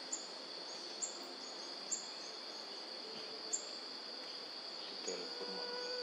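Steady high-pitched insect drone, with five short, sharp, high chirps sliding downward, spaced about a second apart. A faint steady lower tone joins about five seconds in.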